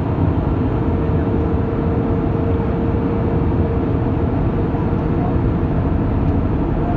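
Steady cabin noise of an airliner in flight: engine and airflow noise heard from inside the cabin, even and unbroken, with a faint steady hum through the first four seconds or so.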